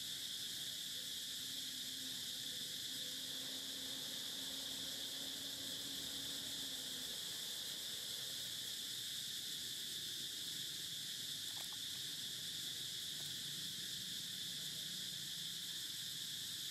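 Steady insect chorus: a continuous high-pitched drone that holds even throughout, with no breaks or pulses.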